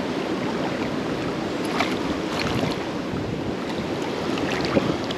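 Steady rush of moving river water mixed with wind buffeting the microphone, with a few faint ticks over it.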